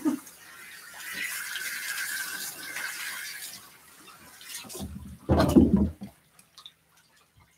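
Water hissing steadily from a hand-held bath sprayer onto a wet dog in a grooming tub for a few seconds, then a brief loud noise about five seconds in.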